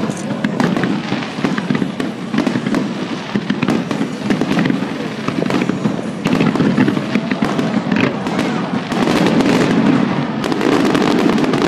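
Fireworks barrage: rapid-fire launches and shells bursting overhead make a dense, unbroken run of booms and crackling reports that grows loudest near the end.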